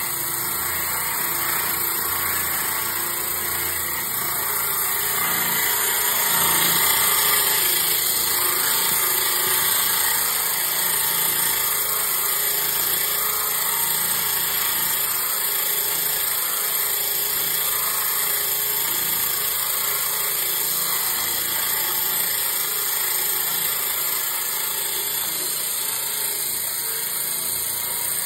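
Homemade blade cleaner's electric motor running steadily, spinning three 6-inch coarse wire brushes with a continuous whirring, scratchy hiss. It gets a little louder about six seconds in.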